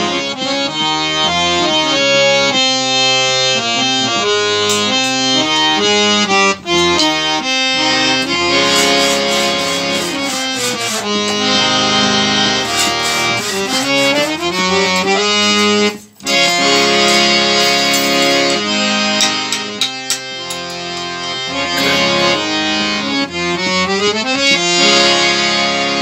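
Three-reed Maharaja BGH scale-changer harmonium with Palitana reeds being played: a melody of reedy, sustained notes with several notes sounding together, the air pumped by hand on the bellows. The sound breaks off briefly about sixteen seconds in.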